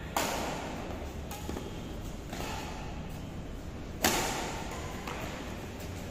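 Badminton rackets striking a shuttlecock during a rally: a sharp hit just after the start and the loudest one about four seconds in, with softer hits between. Each hit echoes on in the large hall.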